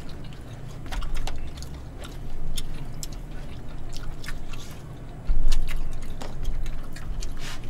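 Eating sounds: chopsticks and spoons clicking against plastic takeout containers, scattered light ticks, with chewing, and several dull knocks, the loudest a little past five seconds in.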